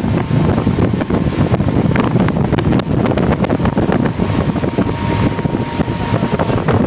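Wind buffeting the microphone aboard a motorboat running at speed while towing a water skier, with the engine and the churning wake underneath. A faint steady whine runs through it.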